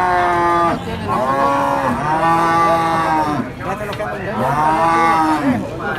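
Cattle mooing: about four long moos one after another, each rising and then falling in pitch.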